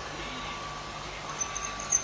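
REDMOND RV-R560 robot vacuum cleaner running with a steady whir and a thin whine. From about two-thirds of the way in there is a quick run of short, high-pitched beeps.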